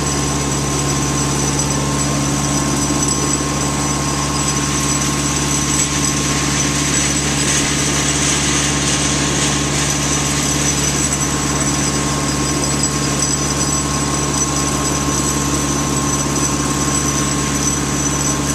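Engine-driven generator running steadily: a constant drone with a steady high whine above it.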